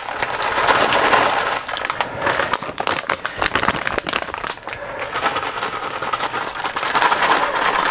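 Plastic bag of shredded mozzarella crinkling and crackling irregularly as it is shaken and squeezed to pour the cheese out.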